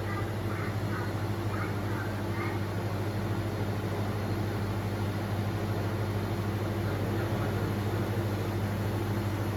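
400 W YAG laser welding machine running with a steady low electrical hum. Faint voices in the background in the first couple of seconds.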